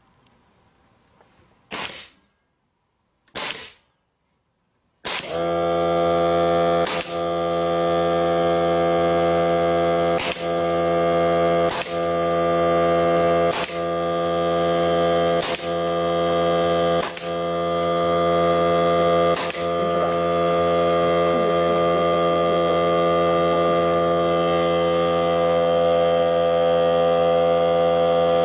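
A pneumatic nailer fires twice, about a second and a half apart. About five seconds in, a Greenworks 40V cordless air compressor's motor starts and runs with a steady hum, topping up the air. Over it the nailer keeps firing sharp shots about every one and a half to two seconds until a few seconds before the end.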